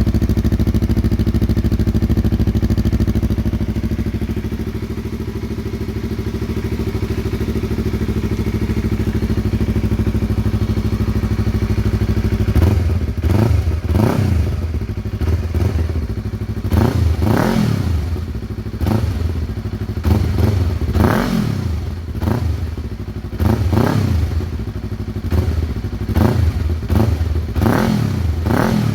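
Yamaha R3's parallel-twin engine through a Yoshimura R77 slip-on exhaust with its silencer insert fitted, idling steadily, then from about halfway through blipped over and over: a dozen or so quick revs, each rising and falling back, about one a second.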